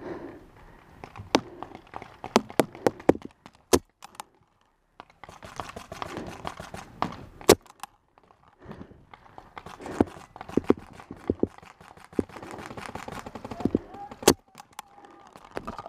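Paintball markers firing in a game: sharp pops, a quick run of shots in the first few seconds, then single louder shots about seven and a half and fourteen seconds in.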